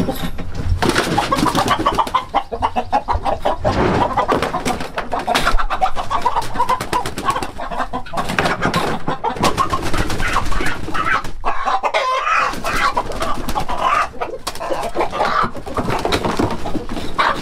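Roosters squawking and clucking almost without pause as they are caught by hand and put into a pet carrier, with short knocks and rattles among the calls.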